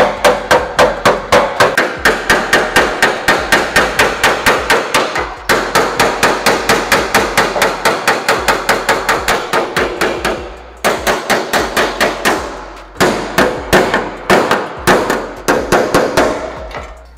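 Steel body hammer striking the sheet metal of a 1940 Willys hood in quick, steady blows, about four or five a second, each with a metallic ring, working a small crinkle out of the panel. The hammering stops briefly a few times, then resumes at the same pace.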